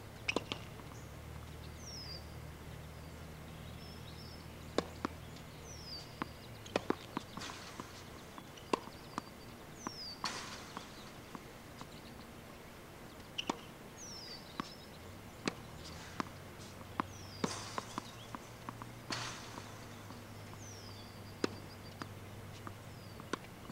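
Tennis balls struck with a racket and bouncing on a hard court: sharp single pops every second or two, irregularly spaced. A bird's short falling whistle repeats every few seconds over a low steady hum.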